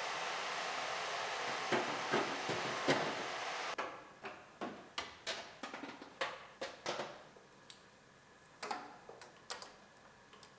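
A steady hiss with a few clicks over it that cuts off abruptly about four seconds in, followed by an irregular run of light clicks and taps from a vehicle wiring harness and its plastic connectors and clips being handled and pressed into place on a bare cab floor.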